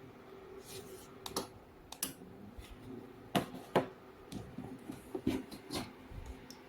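Light plastic clicks and taps from hands handling plastic, scattered irregularly over a faint steady hum.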